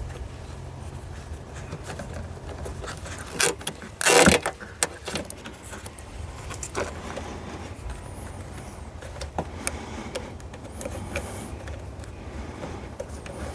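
Nylon zip-tie body panel pegs being handled and their push-on retainers ratcheted down, giving scattered plastic clicks and a louder short rasp about four seconds in, over a steady low hum.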